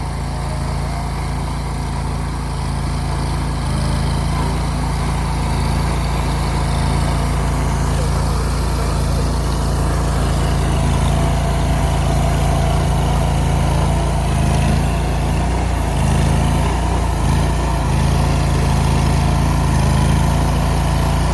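Engine running steadily on a concrete pour, with a short waver in its note about two-thirds through.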